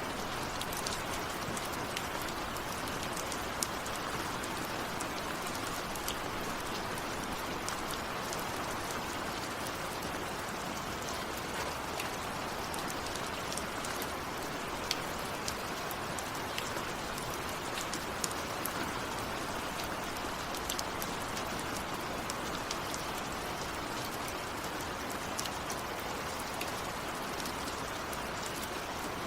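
Steady rainfall, an even hiss of rain on surfaces with scattered sharper drop ticks through it; no thunder.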